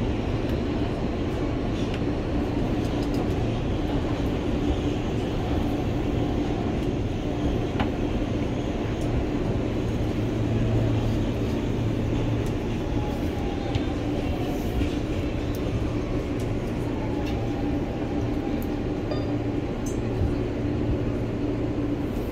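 Interior of an R160B subway car with Siemens propulsion: the train's steady running rumble and hum as it comes into a station. About halfway through, a faint whine falls in pitch, and there are a few light clicks.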